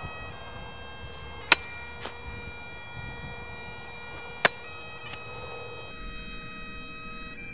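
Bagpipe music, a held drone under a stepping melody, broken twice by a sharp crack, about a second and a half in and again about three seconds later.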